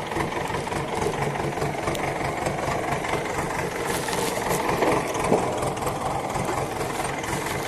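An engine running steadily at idle, with an even, rapid chugging pulse.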